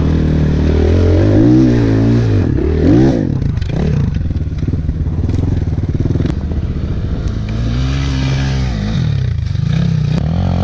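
Regulmoto dirt bike engine being ridden, its pitch rising and falling several times as the throttle is opened and closed. A couple of sharp clicks are heard about six and ten seconds in.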